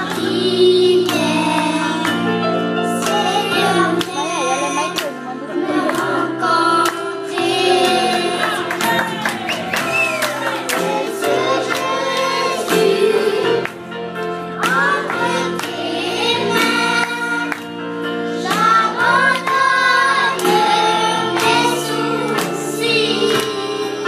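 A group of children singing a gospel song together into microphones, over electronic keyboard accompaniment with a steady beat.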